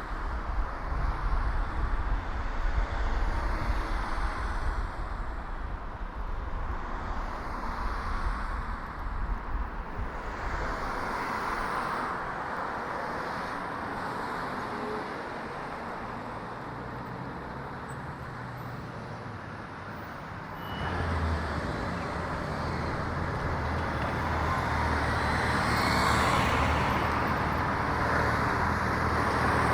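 Road traffic on a city street heard from a moving bicycle: a steady wash of tyre and engine noise. A vehicle's low engine hum comes in suddenly about two-thirds of the way through, and a car goes past close by near the end.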